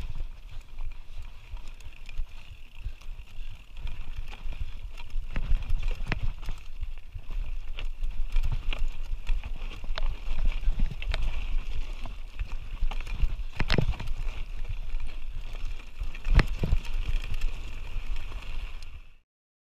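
Canyon Spectral full-suspension mountain bike rattling down rocky singletrack: tyres crunching over stones and gravel, with repeated sharp knocks as the bike hits rocks, over a steady low rumble of wind on the camera microphone. The sound cuts off suddenly near the end.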